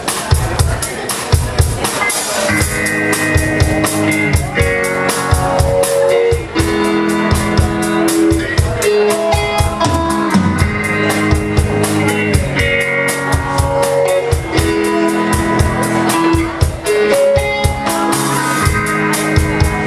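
A live rock band playing an instrumental passage with no vocals: a steady drum-kit beat under held guitar notes that change every second or two.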